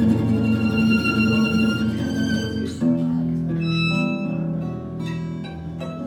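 Live violin, acoustic guitar and upright double bass playing together, the bowed violin carrying the melody over the guitar and bass. About three seconds in, the dense held notes give way to separate, stepping notes, and the playing grows a little quieter.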